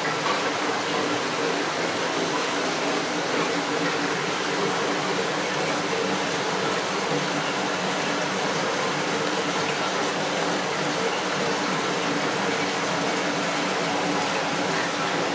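Aquarium water circulation and filtration running: a steady rush of water with a faint pump hum underneath.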